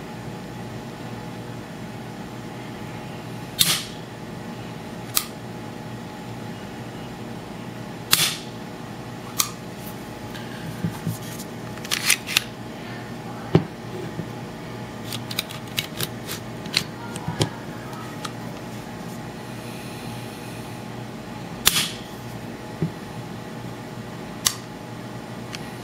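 SIG P250 pistol's double-action-only hammer mechanism clicking: sharp single metallic clicks every second or few as the hammer is worked and falls, with a quick run of smaller clicks about two-thirds of the way through. A steady hiss lies under them.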